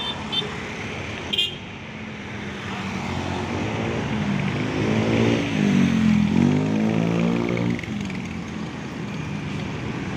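Heavy road traffic, with vehicles idling and moving off at a jammed junction. Between about 3.5 and 8 seconds in, a motor vehicle's engine revs up and down as it pulls away, and this is the loudest sound.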